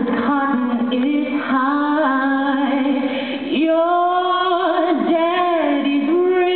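A woman singing solo, holding long notes with vibrato; about halfway through her voice swoops up into a new long held note.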